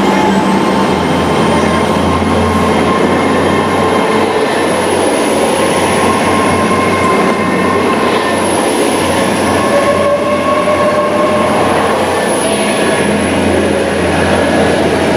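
Great Western Railway Class 800 bi-mode train pulling away and accelerating as its carriages roll past close by, running on its underfloor diesel engines. There is a steady low engine drone with a high whine above it that rises in pitch over the first few seconds, then holds steady.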